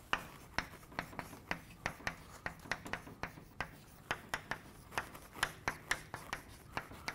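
Chalk writing on a blackboard: a run of sharp taps and short scratches, about three a second, as letters are written.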